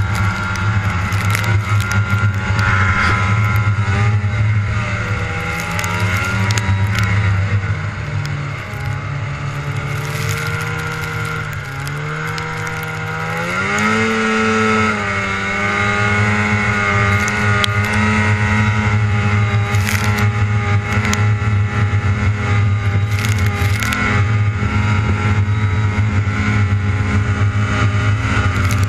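Old Polaris 450cc two-stroke snowmobile engine running under way. Its pitch sags for several seconds about a quarter of the way in, then revs sharply back up around the middle and holds steady.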